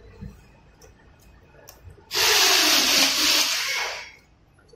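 Light clicks of wire connectors being handled in a scooter's wiring harness, then a loud hiss lasting about two seconds, a little before the end.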